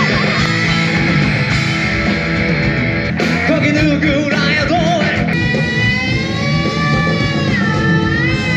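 Live rock band playing, with a singer holding long notes, some of them wavering.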